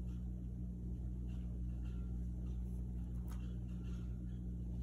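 Room tone with a steady low hum and a few faint ticks.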